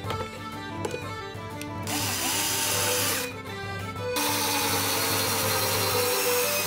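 Blue cordless drill/driver driving a screw into a wooden shelf panel in two runs: a short one about two seconds in, and a longer one from about four seconds in. Its motor whine falls in pitch during the runs.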